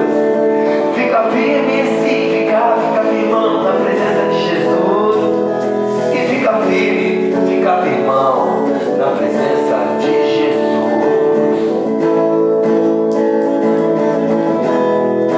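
Instrumental music led by guitar: sustained strummed chords with melody notes sliding up and down in pitch over them.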